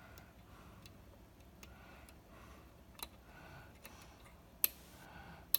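Faint, irregular metallic clicks of a hook pick and tension wrench working the pins of a Schlage key-in-knob lock cylinder, about seven in all, the two sharpest near the end.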